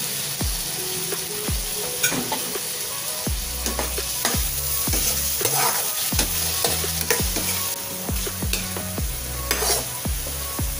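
Chopped tomatoes and onions sizzling in hot oil in a coated frying pan, with a metal spoon scraping and stirring through them. Background music with a steady beat plays underneath.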